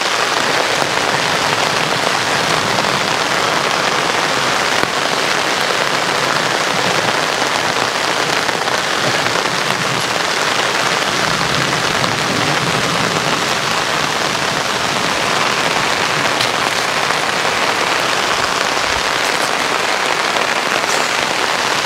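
Heavy rain pouring down steadily, a constant even hiss of rainfall.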